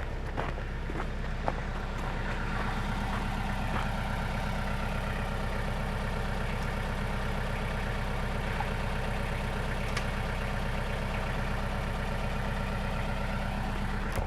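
An engine running steadily at a constant idle.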